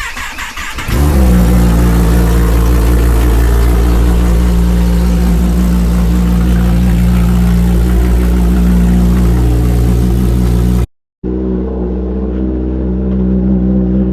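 Kawasaki ZX-10R inline-four engine running on a cold start. It comes up loudly about a second in and then holds a steady fast idle. The sound drops out for a moment near eleven seconds, then the engine carries on slightly quieter.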